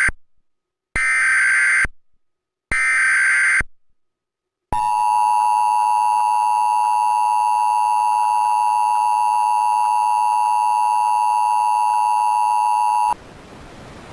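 Emergency Alert System activation. First come the end of one and then two more one-second bursts of screeching digital data tones (the SAME header), each followed by dead silence. After a pause, the steady two-tone EAS attention signal sounds for about eight seconds and cuts off suddenly into a faint hiss.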